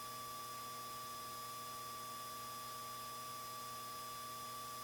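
Steady electronic hiss with a few faint, unchanging hum tones: the noise floor of a cockpit intercom audio feed between transmissions.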